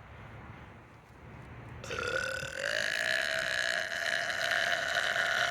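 A woman's single long, drawn-out burp. It starts about two seconds in and is held for around four seconds, its pitch rising a little at the start and then staying steady.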